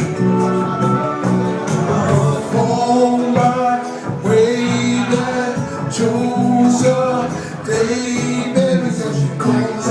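A band playing a song live at a soundcheck, with a man singing the melody over the instruments.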